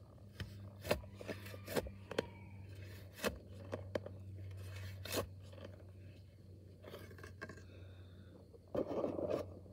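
Shovel digging into hard clay soil: the blade strikes and scrapes the ground in a string of separate knocks, with a louder, longer scrape of soil about nine seconds in. A steady low hum runs underneath.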